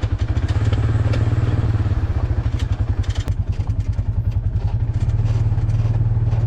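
Polaris RZR 570 side-by-side's single-cylinder engine running steadily under way, with a fast even pulse. A few clattering knocks come about three seconds in.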